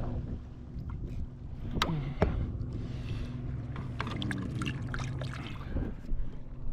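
Knocks and water splashing in a small fishing boat as catfish are handled and released over the side, with a steady low hum underneath; two sharp knocks stand out about two seconds in.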